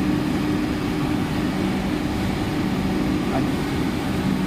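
Steady hum of running electrical machinery: a low drone with two steady tones under an even rushing noise.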